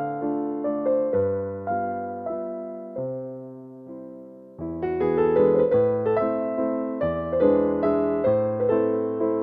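Background music played on a keyboard: a gentle run of struck notes that each fade away. Around three seconds in it thins to one fading held chord, then the notes pick up again about a second and a half later.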